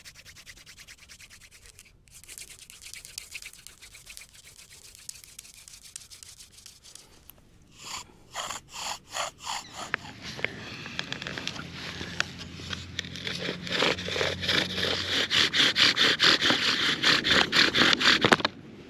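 Wooden fire-by-friction drill grinding into a wooden hearth board. It starts as faint rubbing from a hand-drilled spindle. In the second half a bow drill takes over with fast, even back-and-forth strokes that grow louder and stop suddenly near the end, worked past the board's glazing to build an ember.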